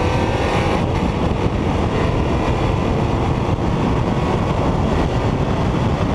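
1992 Ford Mustang 5.0 V8 at full speed on a drag-strip pass: the engine note rises, then about a second in it gives way to a steady rush of wind and road noise on the car-mounted camera.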